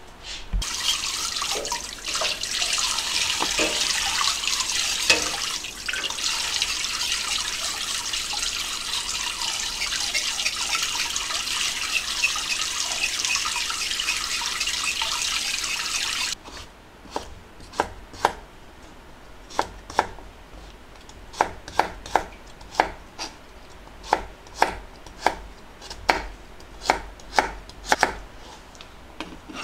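Kitchen tap running hard into a stainless-steel basin while a burdock root is scraped clean with a knife under the stream. About sixteen seconds in the water stops, and a kitchen knife chops the root on a plastic cutting board, with sharp, uneven knocks about one or two a second.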